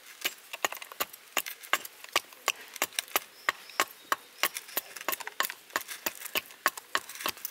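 Hand drill boring into wood with a thick bit against heavy resistance, making a steady run of sharp clicks about three a second.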